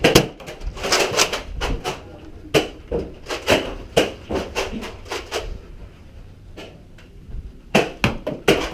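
Irregular sharp clicks and knocks during an indoor Nerf foam-dart battle, a few a second, falling quiet for about two seconds before a fresh cluster near the end.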